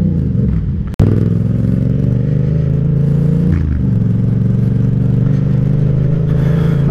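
Yamaha MT-07's parallel-twin engine running steadily while the bike is ridden. The sound cuts out abruptly about a second in and comes straight back, and the engine note dips briefly about three and a half seconds in.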